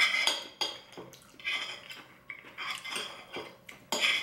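Metal knife and fork scraping and clinking against a ceramic plate while food is cut, in about five short bursts, the loudest right at the start.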